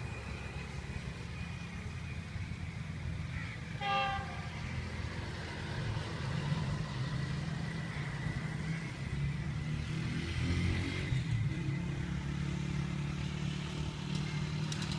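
Distant GEU-40 diesel-electric locomotive approaching, its engine a low, steady rumble that grows slowly louder. A brief horn toot sounds about four seconds in.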